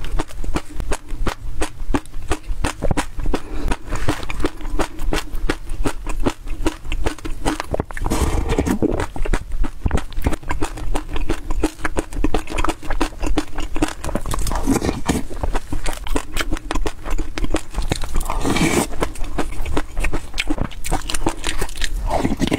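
Close-miked chewing of a mouthful of small seeds: a dense, continuous run of crisp crackles and clicks.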